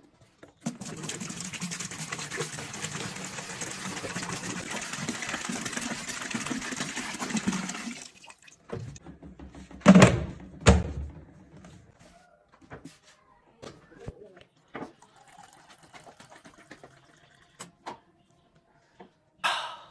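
Water pouring steadily into a plastic water cooler for about seven seconds, then two loud knocks as the cooler's plastic lid is set on, followed by faint scattered clicks.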